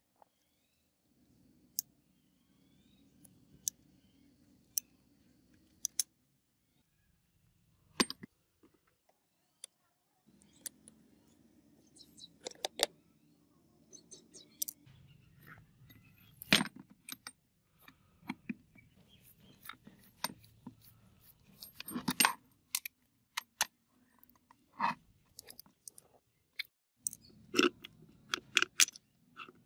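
Rusty steel gun parts clinking and clicking as they are handled, unscrewed and set down on concrete, with a screwdriver tapping and scraping on metal. The clicks come singly and sparsely at first, then more often, with a quick cluster near the end.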